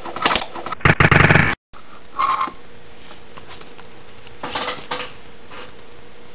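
Loud rattling clatter about a second in, then a short clack and a brief rustle a few seconds later, over a steady hiss with a faint hum.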